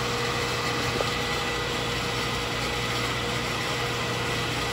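Accuturn 8922 brake lathe running steadily with a brake rotor spinning on its arbor: an even motor hum with a steady whine, before the bits bite into the rotor. A faint tick about a second in.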